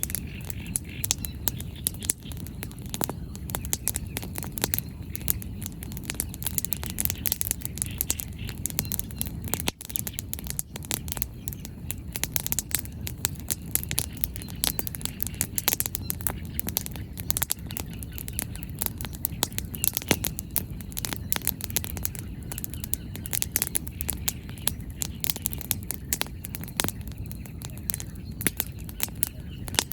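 Wood bonfire crackling, with frequent sharp pops and snaps of burning firewood over a low, steady rumble.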